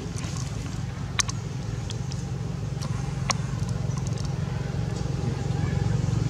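Steady low engine rumble, growing louder near the end, with a few sharp clicks over it.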